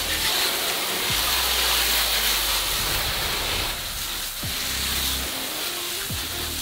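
Water jetting from a garden hose spray nozzle onto a car's engine bay: a steady hiss and spatter of water hitting the engine and body panels.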